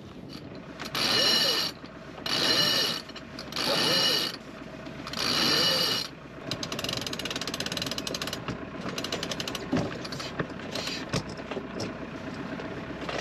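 A sailing yacht's deck gear ratcheting: four short bursts of clicking about a second apart, then a steady run of fast clicks.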